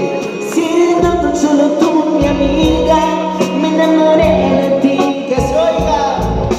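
Live band with a male lead singer singing a ballad into a handheld microphone, holding long notes that bend in pitch over a steady beat.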